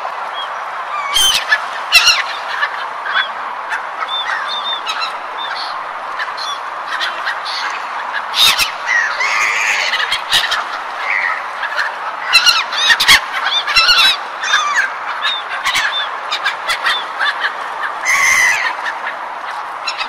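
A flock of gulls calling over and over with short, harsh cries that overlap, over a steady rushing noise.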